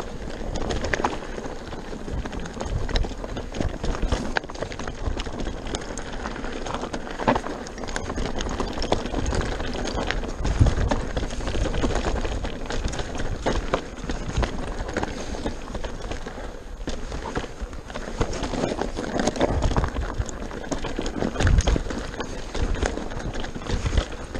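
Pivot Mach 429 Trail mountain bike riding fast down rocky dirt singletrack: tyres crunching over stones, with constant knocks and clatter from the bike as it takes the bumps. A low rumble of wind on the microphone runs underneath.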